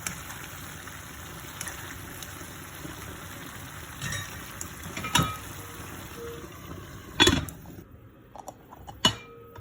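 Zucchini, bell pepper and ground-beef sauté simmering and sizzling steadily in a pan, with a few sharp knocks; the sizzle stops about eight seconds in, as when the pan is taken off the heat.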